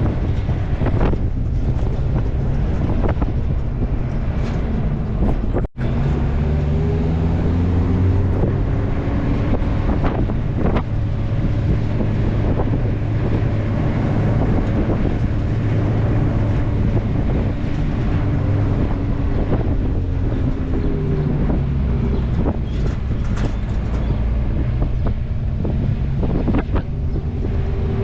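Car engine running while driving, its pitch shifting up and down as it changes speed, over steady road rumble and wind buffeting the microphone. The sound cuts out for an instant about six seconds in.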